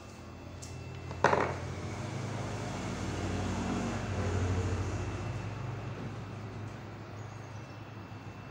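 A sharp knock about a second in, then a passing vehicle's engine: a low drone that swells to a peak around four seconds in and fades away.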